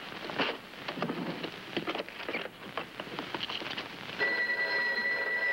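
A desk telephone being dialled, a run of small clicks, then a telephone bell ringing steadily from about four seconds in.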